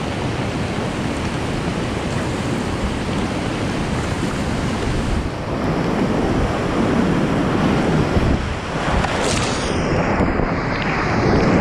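Rushing whitewater of a big rapid on a flooding river, heard from a packraft with wind noise on the microphone. The water noise grows heavier about halfway through as the raft runs into the waves, and near the end the sound turns muffled.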